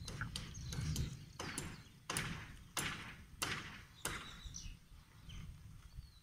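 Boiled eggs being cracked, sharp knocks of eggshells tapped against the ground, one about every half second to second. A bird chirps faintly near the end.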